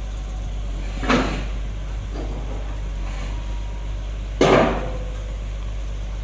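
Two heavy metal clanks, one about a second in and a louder one about four and a half seconds in, over a steady low engine hum: the lowboy truck's steel loading ramps coming down onto the ground.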